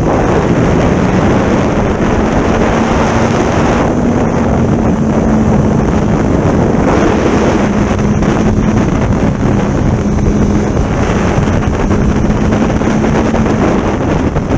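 Heavy wind buffeting on a camera microphone on a moving motorcycle, with the engine's steady hum underneath shifting a little in pitch.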